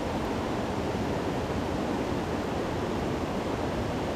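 Shallow creek water rushing steadily over rocks in a riffle.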